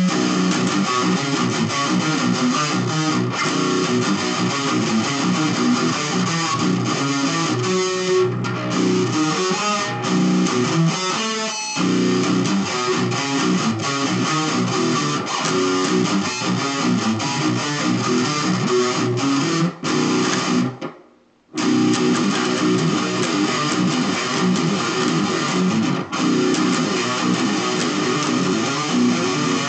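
Electric guitar playing riffs, stopping briefly about twenty-one seconds in and then starting again.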